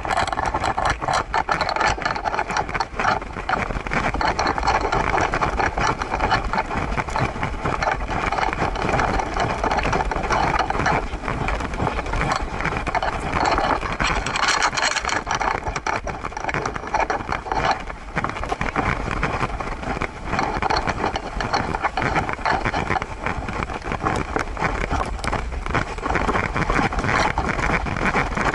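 Continuous rumbling, rattling handling noise from an action camera strapped to a walking Siberian husky: the mount jostling and scraping with each movement, mixed with wind on the microphone.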